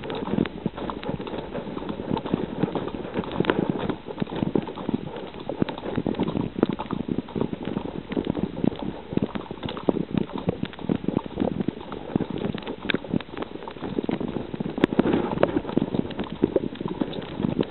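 Horse at a fast canter on a dirt trail, heard from the saddle: a quick, continuous run of hoofbeats.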